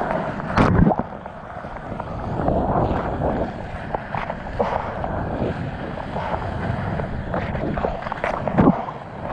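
Whitewater rushing and churning around a surfboard as it rides a broken wave, with wind buffeting the microphone. Sharp splashes break through, the loudest about half a second in.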